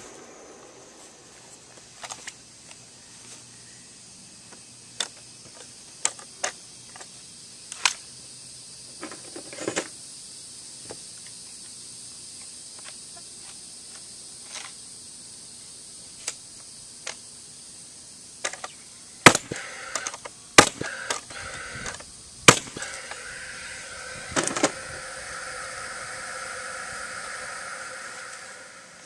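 Scattered wooden knocks and clacks of lumber boards being handled and set against one another, with a few sharp, louder knocks close together about two-thirds of the way through. A steady hum comes in after those knocks and fades near the end.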